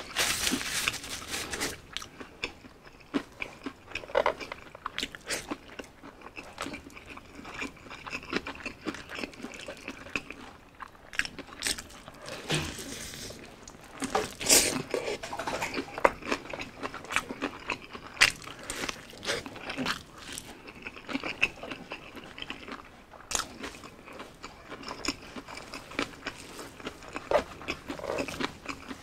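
Crispy fried chicken being bitten and chewed: irregular crunches of the breaded skin and chewing, with a few louder crunches about halfway through.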